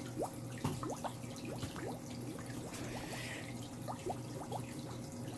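Water dripping and trickling into a fish pond: scattered single drops plink, each with a quick rising pitch, over a steady low hum.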